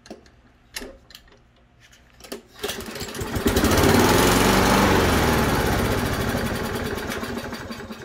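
Kohler XT675 149cc single-cylinder engine on a Toro push mower, pull-started on starting fluid after a carburettor rebuild. A few light clicks come first, then about two and a half seconds in it fires and runs, loudest at first and fading steadily over the next few seconds as it dies down. This fits the mower's starts-then-dies fault, which turned out to be a failing ignition coil.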